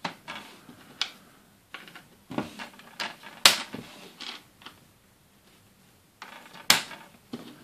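Small plastic Playmobil cover pieces pressed by hand onto the top of a fire-station gate frame: a few sharp plastic clicks as they snap on, the loudest about three and a half seconds in, with soft handling rustles between.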